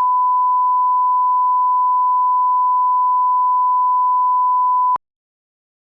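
Steady 1 kHz line-up test tone, a pure beep held for about five seconds that cuts off abruptly with a click.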